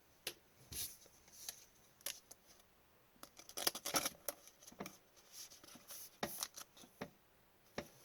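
Trading cards being flipped and slid against one another by hand, with soft, irregular clicks and swishes.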